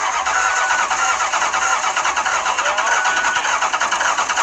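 Truck engine cranking over on its starter with a fast, even pulse, trying to catch on starting fluid sprayed into the air cleaner because it is short of fuel; the owner thinks it might have a misfire.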